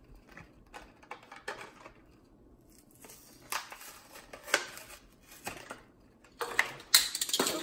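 Cardboard backing and plastic blister of a Hot Wheels package crackling and tearing as it is pulled open by hand, in irregular bursts of crackles and rips, loudest near the end.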